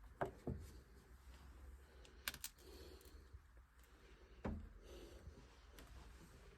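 Near silence with a few faint, scattered knocks and clicks: two close together right at the start, a quick pair a little after two seconds, and one more at about four and a half seconds.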